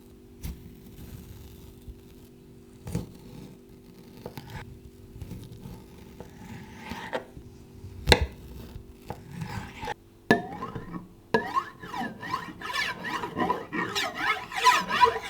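Foley handling sounds: scattered knocks and taps, with one sharp, loud knock about eight seconds in. From about ten seconds in they give way to a busier, louder run of clicks and squeaky scraping.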